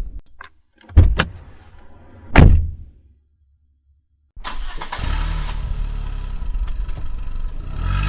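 Three loud knocks, two close together and a third a little over a second later, then a short silence, then a motor that starts abruptly and runs steadily with a low rumble.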